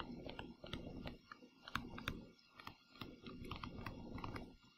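Stylus tapping and scratching on a tablet screen while handwriting words: a quiet, irregular run of small clicks, several a second.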